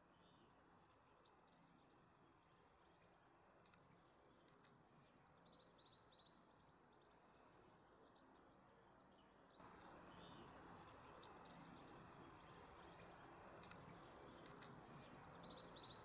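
Faint high-pitched calls of small songbirds: short chirps every second or two and a few quick runs of rapid notes, over near silence. The background hiss grows louder about ten seconds in.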